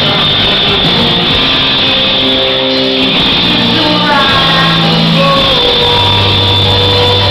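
Live rock band playing loud: electric guitar, bass guitar and drum kit, with a singer on the microphone.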